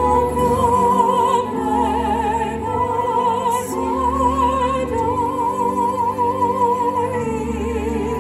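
Classical, operatic-style music: a single high voice singing long notes with wide vibrato over held low chords that change every couple of seconds.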